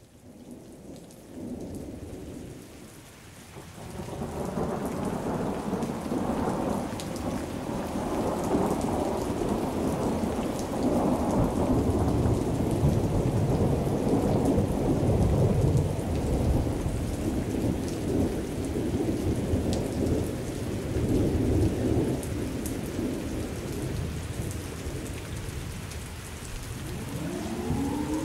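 Thunderstorm: steady rain with long rolling thunder that swells in after a few seconds and keeps rumbling. Near the end a synthesized outdoor warning siren starts to wind up, rising in pitch with several tones together.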